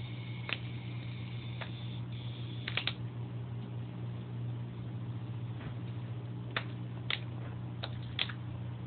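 Steady low electrical hum with a handful of sharp clicks scattered through it, three in quick succession near three seconds in.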